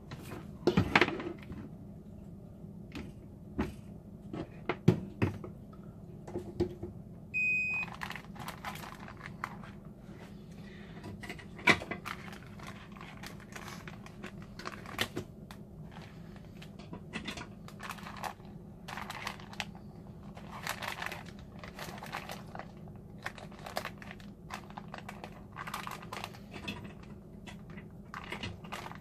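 Zip-top plastic bags of chicken crinkling and knocking against a pot as they are pushed into water, with a sous vide circulator clicking as it is handled. The Chefman circulator gives one short electronic beep about seven and a half seconds in, over a steady low hum.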